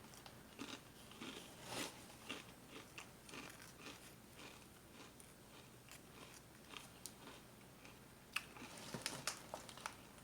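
Kettle-cooked potato chips being chewed, a crisp crunching in irregular bursts, loudest about two seconds in and again toward the end.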